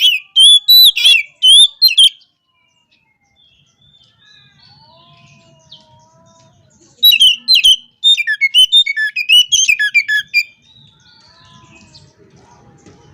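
Oriental magpie-robin (kacer) in full song: two loud bursts of rapid, varied whistles and chirps, about five seconds apart, with softer notes between them. This is the energetic song that keepers use to call out a rival.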